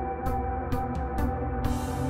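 Background music: held electronic tones with a light high tick about twice a second, and a hissing swell near the end.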